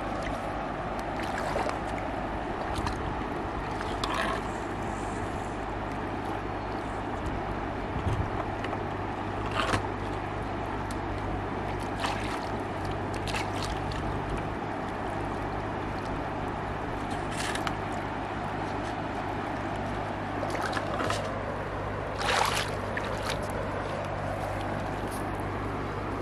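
River water lapping and sloshing at the shallows, with scattered small splashes and knocks, the loudest late on, over a steady low hum.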